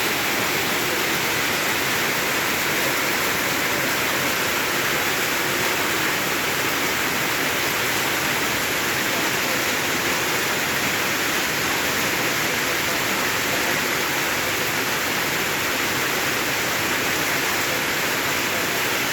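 Heavy monsoon rain pouring down in a steady, unbroken hiss.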